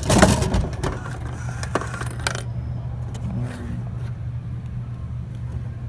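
Dixie-Narrow vending machine dispensing a Gatorade bottle: a loud clunk at the start, then metallic rattles and clicks for about two seconds, over a steady low hum.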